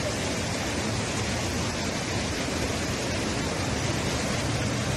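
Muddy flash-flood water rushing down a river channel: a steady, even rushing noise of the torrent.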